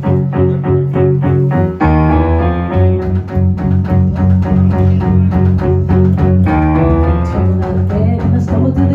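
Live band playing an instrumental passage: a bass line under sustained chords, with a steady beat and chord changes along the way.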